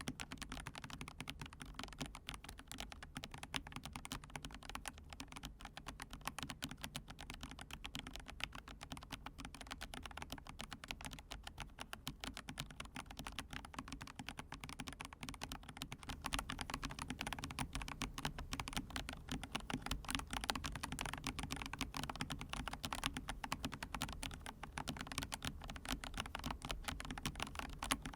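Continuous typing on a Monstargear Ninja108 PRO full-size hot-swap mechanical keyboard with Gazzew Boba U4T non-clicky tactile switches, PBT Cherry-profile keycaps and lubed stabilizers. The keystrokes come dense and steady and grow a little louder about halfway through.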